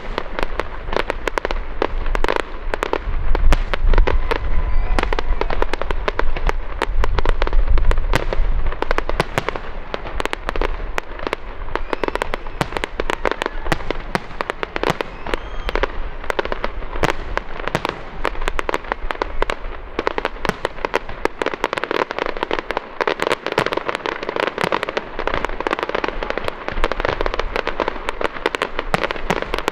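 Aerial fireworks display: shells bursting with deep booms over a dense, continuous crackle of many small pops. The booms are heaviest in about the first ten seconds.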